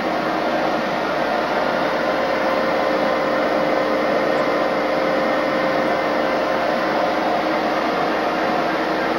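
Steady mechanical drone of a Conrail SD60M diesel locomotive's running machinery, heard from inside the locomotive's nose compartment, with a faint steady hum under the even rush.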